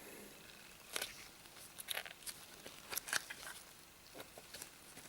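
Light handling clicks and taps from a Bosch drill-bit set's plastic case and bits, several scattered short sharp clicks.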